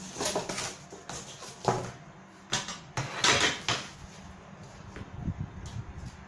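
Corrugated cardboard sheets being handled and slid across a work table, with scrapes and rustles. The loudest scrapes come in the first few seconds, and the handling grows quieter as a ruler is laid down on the cardboard.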